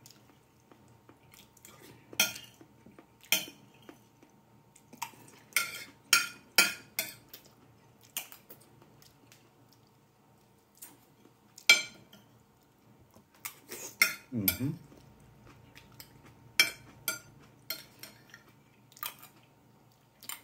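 Metal spoon clinking and scraping against a ceramic plate while scooping up the last of the food, in scattered sharp clinks at irregular intervals.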